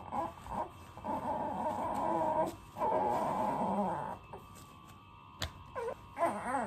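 Young infant fussing during a nappy change: two drawn-out whiny cries in the first four seconds, then a few short, squeaky whimpers near the end.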